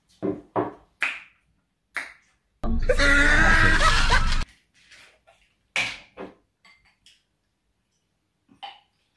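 A woman's vocal reactions just after downing a shot of liquor: a few short gasps or coughs, then about two and a half seconds in a loud, drawn-out strained vocal sound lasting nearly two seconds, followed by a few softer short noises.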